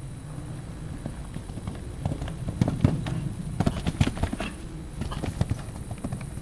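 Hoofbeats of a ridden horse cantering on sand arena footing. They grow louder as the horse passes close, about halfway through, then fade as it moves away.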